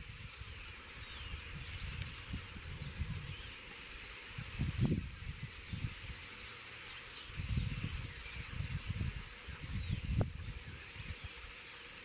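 A large flock of common starlings chattering and whistling in a dense, continuous chorus of overlapping calls. Low rushing gusts come and go every few seconds, strongest about halfway through.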